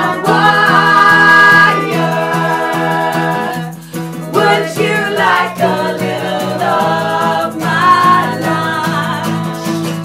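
A song performed live: a woman sings lead and men sing along behind her, over a strummed acoustic guitar.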